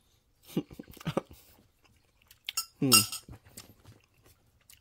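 Eating sounds: a spoon clicking and clinking against a paper ice cream cup, with mouth sounds of tasting. A short hummed vocal reaction comes about three seconds in.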